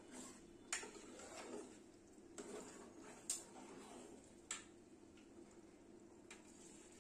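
Metal spoon clinking against a large aluminium pot while rice, meat and potatoes are stirred: about five sharp, irregularly spaced clinks with softer scraping between, over a faint steady background.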